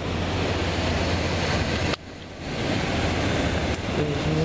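Steady wind noise buffeting the microphone over open sea, with a low rumble; it breaks off sharply and dips for a moment about two seconds in, then resumes.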